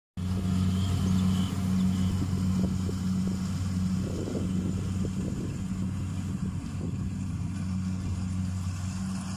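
Kubota DC-68G combine harvester's diesel engine running steadily under working load, a low drone that cuts in abruptly just after the start.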